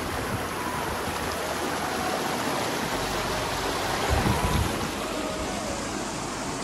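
Shallow rocky mountain stream running over boulders in small cascades: a steady, even rush of water. A brief low rumble rises over it about four seconds in.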